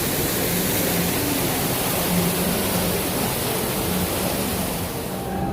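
An artificial waterfall giving a steady, even rush of falling water, its hiss dropping away sharply near the end.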